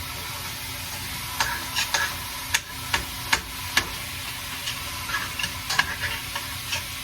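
Ground beef frying and sizzling in a pan while a spoon stirs it, with irregular sharp clicks of the spoon against the pan.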